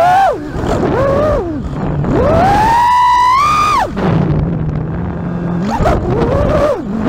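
FPV quadcopter's brushless motors and propellers whining, the pitch swooping up and down with the throttle. The whine falls away sharply several times, sits at a low steady hum for a couple of seconds past the middle, then climbs and drops again.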